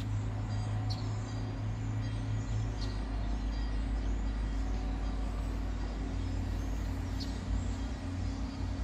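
Diesel train engine running with a steady low rumble and hum, the train approaching slowly along the station platform. A few faint short high chirps sound now and then.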